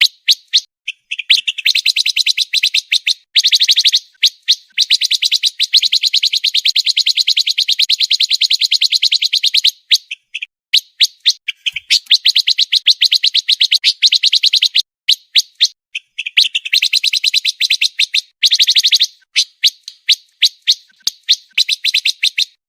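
Pancawarna bird singing a fast, tightly packed run of high chirps, many notes a second, in long phrases of a few seconds with brief pauses between them. This rapid, close-set song is the kind used as masteran to teach competition songbirds.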